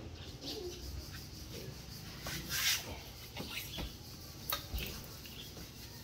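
Faint, scattered knocks and clinks as a steel wheel wrench and the removed wheel and tyre are handled, with a short rustle about two and a half seconds in.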